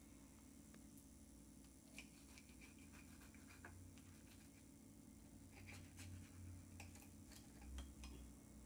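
Near silence, broken by faint scattered clicks and ticks of a kitchen knife cutting a quesadilla against a plate.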